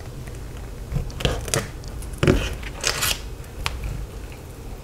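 Knife cutting into a glazed meatloaf in a thin aluminium foil pie pan: a few short crackling scrapes as the blade goes through the sticky crust and the foil pan crinkles under the hand.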